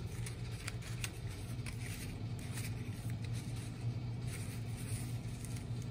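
Faint rustling and soft scraping of a paper strip being woven over and under the strips of a paper mat, in scattered light clicks, over a steady low hum.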